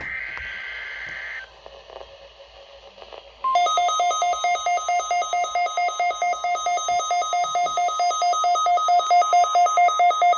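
A short burst of EAS/SAME digital header data tones at the start. About three and a half seconds in, the NOAA Weather Radio 1050 Hz warning alarm tone begins, overlaid by a weather radio receiver's alarm beeping rapidly and steadily, which marks the receiver being set off by the weekly test.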